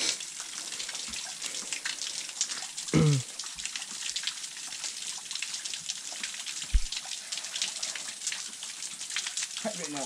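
Spring water trickling and splashing over rocks: a steady, crackly patter of small splashes. A short voice sound comes about three seconds in, and a low thump near seven seconds.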